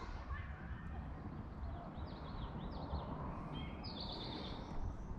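Songbirds chirping from the lakeshore woods: a run of short, arched chirps a couple of seconds in, then a quick trill near the end, over a low, uneven rumble.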